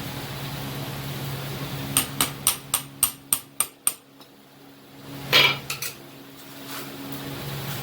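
Hammer striking steel on an anvil: about eight quick ringing blows, roughly four a second, then a louder clattering knock of metal a little over a second later.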